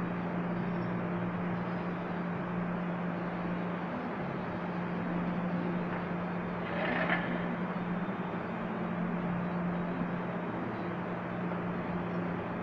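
Steady low mechanical hum over constant background noise, with a short noisy burst about seven seconds in.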